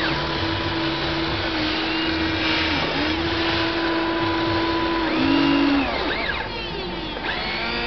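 Hobby Engine RC toy excavator's small electric gear motors whining as the boom and arm swing up and back down. The pitch rises as a motor starts, holds steady, and falls as it stops, several times over.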